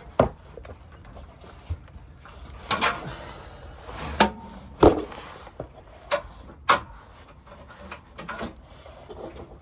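Irregular knocks and clunks, about six sharp hits a second or so apart, from hands and tools working on a car's parts during a GM 4L60E transmission removal.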